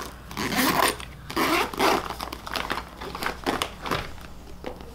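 Zippers on clear vinyl makeup pouches being pulled, a few quick strokes in the first two seconds or so, followed by light clicks and plastic handling sounds.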